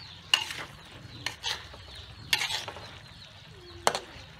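Metal spatula scraping and knocking against a steel wok while stirring catfish pieces in sauce: about five sharp scrapes, unevenly spaced.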